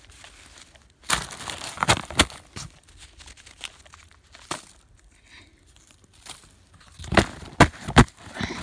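A cardboard box being handled: flaps rustling and knocking, with a cluster of sharp thumps and clatters about a second in and another near the end.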